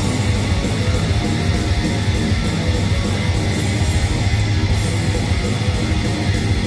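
Heavy metal band playing live, loud, with an electric guitar riffing over a heavy low end.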